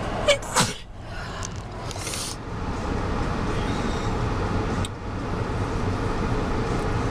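A steady low rumble, like a vehicle heard from inside, with two sharp clicks shortly after the start.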